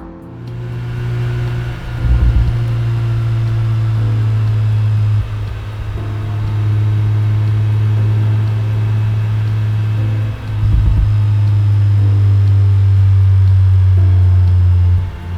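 A modified Mazda RX-8 R3's two-rotor Renesis rotary engine runs at a steady engine speed, with no catalytic converter and an Invidia Q300 exhaust. Its note drops briefly and picks back up about 2, 5, 10 and 15 seconds in.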